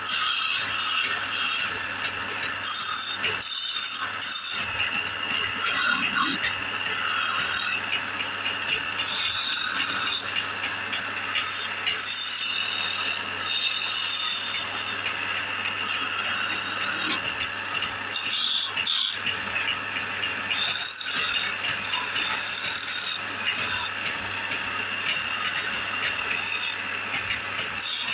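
Chisel cutting into wood spinning on a lathe: a continuous rasping scrape with the shavings coming off, swelling and easing every few seconds as the tool is worked, over the steady hum of the turning lathe.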